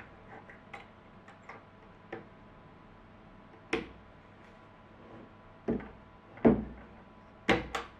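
Light clicks, then five sharp wooden knocks at irregular spacing, the loudest about six and a half seconds in, as the plywood clamp block of a jigsaw cutting jig is worked by hand: its plastic star knob turned and its toggle latch handled.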